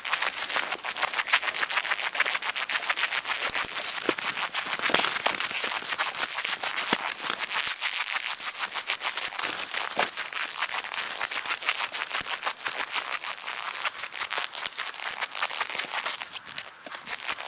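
Footsteps crunching through fresh snow and snow-covered brush: a dense, steady crackle.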